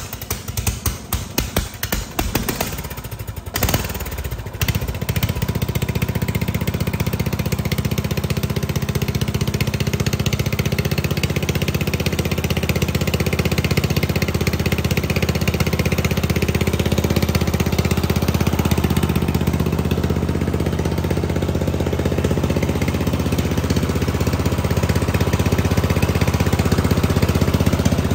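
Riding lawn tractor's 14.5 hp OHV single-cylinder engine cranked on the electric starter from cold without choke. It catches about four seconds in and then runs steadily.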